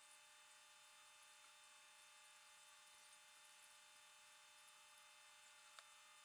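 Near silence: a faint, steady electrical hum and hiss with a few faint ticks.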